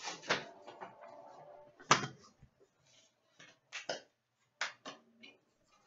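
Hands handling trading cards and plastic card holders, with a sharp knock about two seconds in, then a few lighter clicks and taps.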